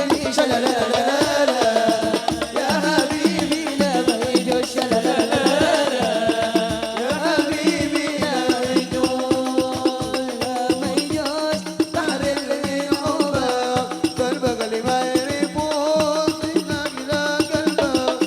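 Gambus-style band music: a melodic lead that bends and wavers in pitch, over a steady, quick hand-drum beat.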